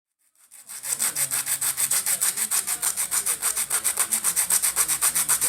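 Rapid, even scraping strokes of a hand tool, about ten a second, starting about half a second in.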